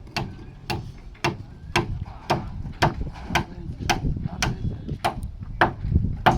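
Hand tools striking in a steady rhythm at construction work, about two blows a second, each a sharp knock with a short ring, over a low rumble.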